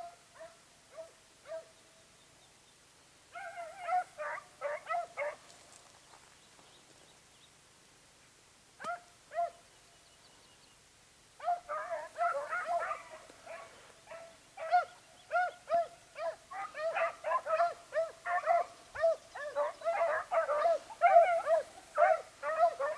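Pack of Basset Fauve de Bretagne scent hounds giving tongue on a rabbit's trail, high yelping barks. A few scattered yelps at first, a short burst about four seconds in, then from about halfway an almost continuous run of yelps, the hounds in full cry on the scent.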